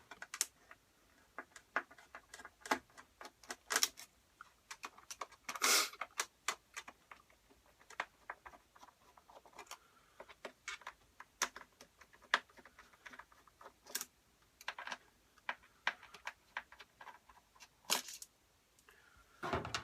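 Scattered small metallic clicks and taps of a Torx screwdriver and loosened screws against the iMac's metal frame as the LCD panel's screws are undone, with a few louder knocks.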